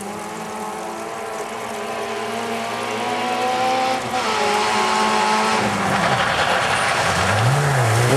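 Rally car engine at high revs, growing steadily louder as it approaches. The engine note drops about two-thirds of the way in, then rises and falls quickly several times near the end.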